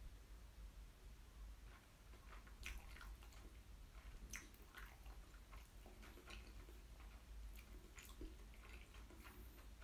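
Faint chewing: soft, irregular wet mouth clicks of food being chewed with the mouth closed, over a low steady hum.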